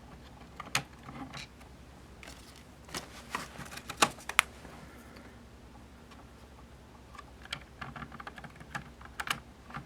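Acrylic case panels being handled and fitted together: scattered light plastic clicks and taps, a few sharper ones about four seconds in and a cluster near the end.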